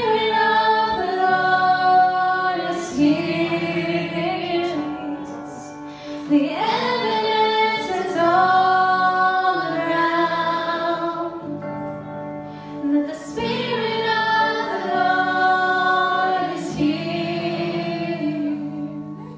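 A small worship band playing live: women's voices singing a melody in long held notes, with a man's voice and strummed acoustic guitar underneath. The sung phrases come in waves every three to four seconds.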